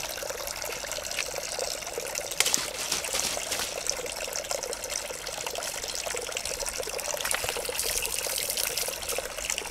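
Spring water trickling and splashing steadily, with a fine crackling spatter over a continuous rush.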